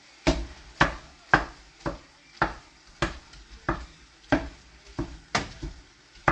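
Wooden spatula chopping up ground beef in a frying pan, knocking against the pan about twice a second.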